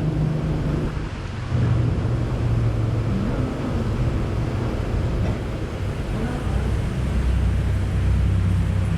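A motor running with a steady low hum, its pitch stepping down about seven seconds in.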